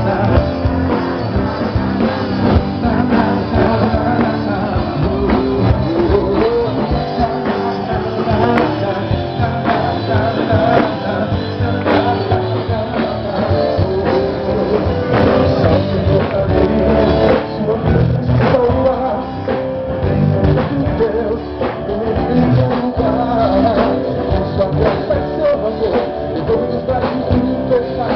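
Rock-style worship song played by a band with singing, guitar and drums.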